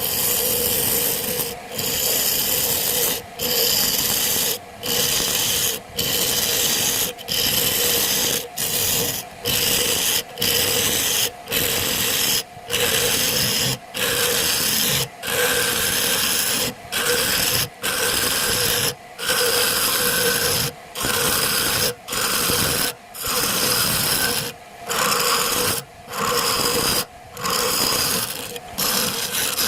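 Wood lathe turning a sappanwood blank, with a tool pressed against the spinning wood making a steady rasping hiss. The hiss is broken by short gaps about every second.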